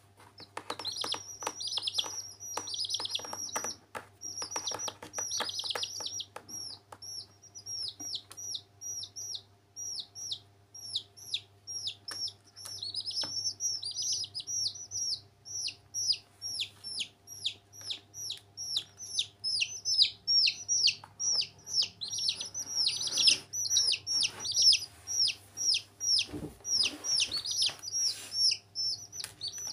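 Baby chicks peeping without pause: rapid high, downward-sliding peeps, several a second, coming thicker and louder in the second half.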